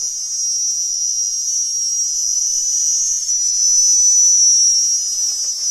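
Several cicadas buzzing loudly in one steady, high drone, swelling slightly about four seconds in.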